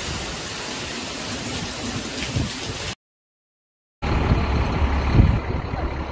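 Tropical-storm wind and heavy rain, a steady rushing noise, that cuts off sharply about three seconds in. After a second of silence comes the low rumble of a large truck's engine running.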